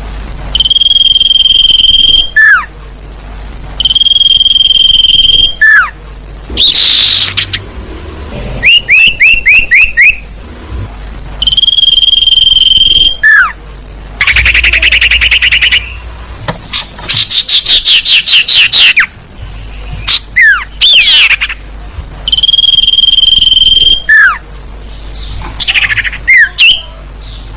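Bird-trapping lure recording of calls sold as sirtu (scops owl) calls, loud and looped. Four long held whistles, each ending in a falling note, alternate with quick trills and chattering runs.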